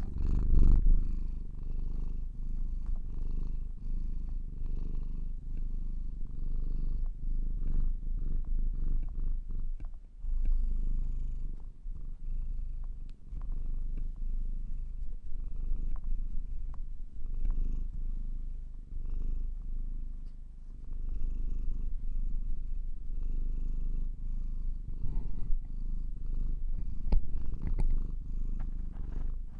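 Domestic cat purring close to the microphone, a continuous low rumble with a few small clicks over it.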